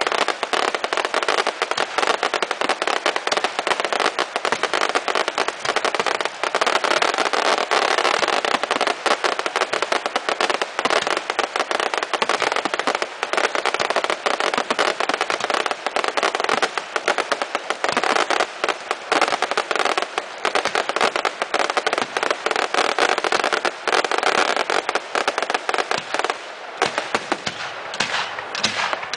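Dense barrage of aerial fireworks: shells bursting with a continuous rapid crackle and many overlapping bangs. It thins out a little near the end.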